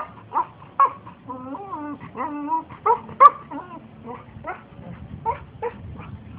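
Husky-type dog vocalising in a run of sharp yips and wavering, drawn-out whines, the loudest yelps near the start and a little past the middle, then softer short yips about twice a second. The dog is complaining at a tortoise trying to move her from her spot.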